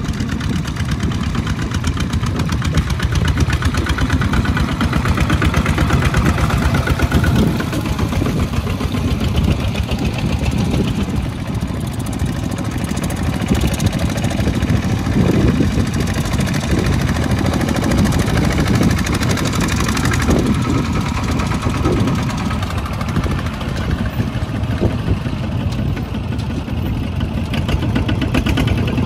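Single-cylinder diesel engine of a two-wheel walking tractor chugging steadily under load as it hauls a trailer of rice sacks through deep mud.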